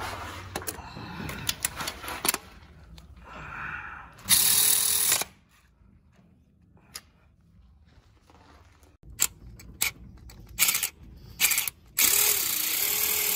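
Snap-on cordless ratchet running on a bolt: one short burst of about a second, then a longer steady run, with a motor whine, starting near the end. Scattered clicks and knocks from handling the tool come in between.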